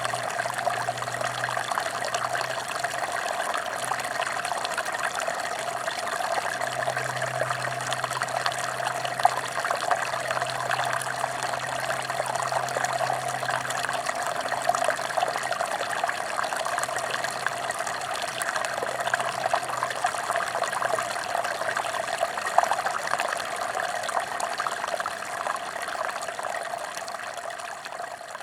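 Mountain stream rushing and splashing steadily over rocks, fading out near the end.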